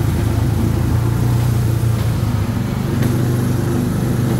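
Small engine of a track-guided amusement-park race car running at a steady pace as the car travels along its track, heard from the driver's seat as a continuous low hum.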